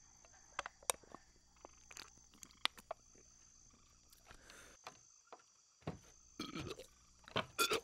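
Steady high-pitched insect chirring, with scattered sharp clicks and knocks over it and a few louder rustling scrapes about six seconds in and near the end.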